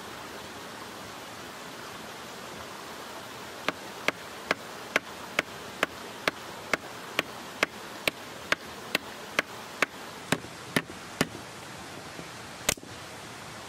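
Small red-handled hatchet chopping a thin dead branch laid over a mossy rock: about eighteen quick, evenly spaced strikes, roughly two a second, then one sharper crack near the end. Underneath runs the steady rush of a mountain stream.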